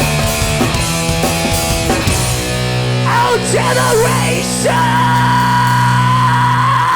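Live hardcore punk band with distorted guitars ending a song. The fast playing gives way about two seconds in to a held chord, over which a high note bends up and down and then holds steadily until the band cuts off.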